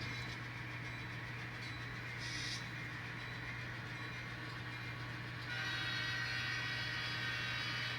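N scale model diesel train running on the layout: a steady hum, with a louder, higher-pitched sound joining about five and a half seconds in.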